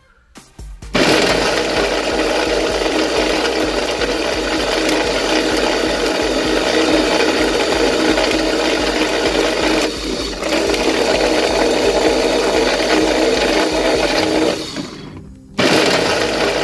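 Electric blender motor running with a foam squishy toy in its plastic jar. It starts about a second in, drops out briefly around the middle, winds down near the end, and starts again abruptly just before the end.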